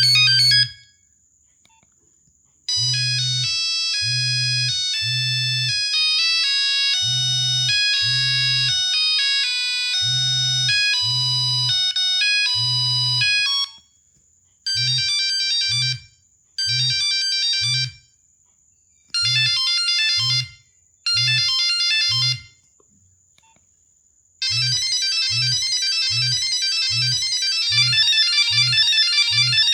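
Nokia 1100 monophonic ringtones playing one after another: the tail of one tone, then a beeping melody of about eleven seconds, then four short bursts of beeps with pauses between them, then a new, busier tone starting a few seconds before the end. A low buzz pulses in time with the notes.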